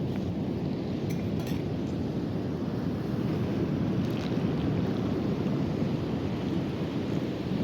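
Steady wind rumbling on the microphone over the rush of ocean surf on an open beach.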